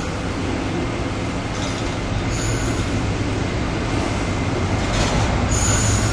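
DF11 diesel-electric locomotive hauling a passenger train and speeding up, its engine running with a low hum over the rumble of the passing train, growing gradually louder. Two brief high squeals cut through, one about two seconds in and one near the end.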